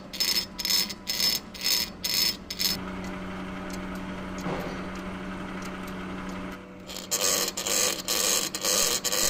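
Metal lathe turning a brass bolt while a single-point tool cuts its thread: a rhythmic scraping about three times a second over the machine's steady hum. The scraping stops for a few seconds in the middle, leaving only the hum, and starts again near the end.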